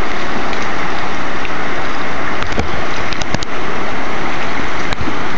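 Rushing whitewater of a river rapid, a steady loud rush. A few sharp clicks come between about two and three and a half seconds in, and one more near the end.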